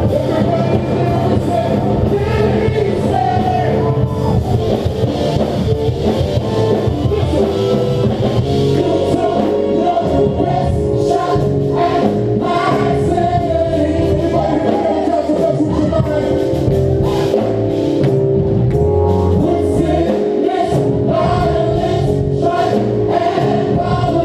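Live gospel worship music: a choir or group of singers holding long sung notes over a band with drums.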